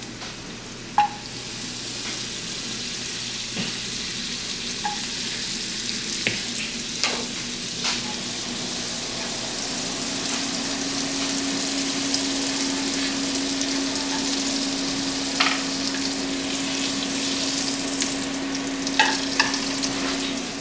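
Butter and sautéing vegetables (red bell peppers, onions, garlic) sizzling steadily in frying pans, the hiss swelling about a second in, with a few sharp clicks and taps of a utensil on the pan.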